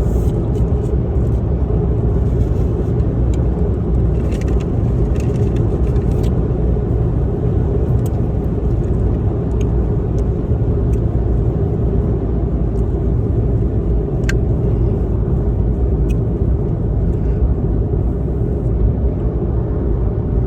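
Steady low rumble of a car heard from inside the cabin, engine and road noise of the car being driven, with a few faint clicks.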